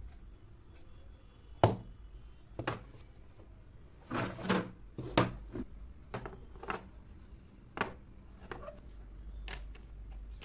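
Miniature wooden dollhouse furniture being handled and set down on a hard surface: light wooden knocks and clicks at irregular intervals, some in quick clusters.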